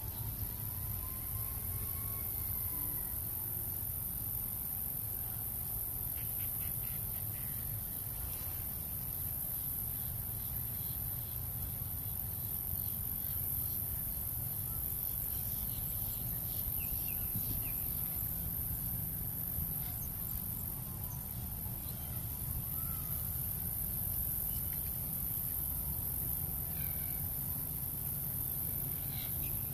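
Steady, high-pitched drone of insects over a continuous low rumble, with a few faint bird calls and short chips scattered through it.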